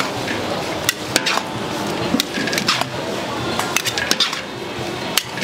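Metal cooking utensils clinking and scraping against a pan: a run of sharp, irregular clinks, some ringing briefly, over a steady noisy background.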